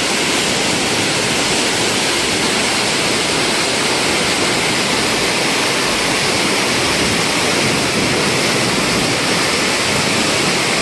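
Montmorency Falls, a large waterfall, pounding down heavily in a loud, steady, unbroken rush of water.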